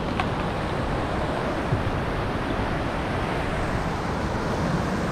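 Steady rush of whitewater rapids pouring over rocks, with wind buffeting the microphone.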